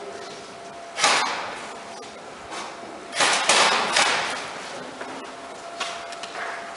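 A few sharp cracks or knocks, each dying away with an echo: one about a second in, a quick cluster of three around three to four seconds in, and a fainter one near the end.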